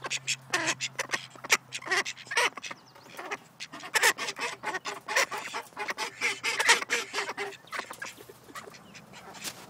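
Pair of snowy call ducks quacking, a rapid run of short repeated calls that thins out over the last couple of seconds.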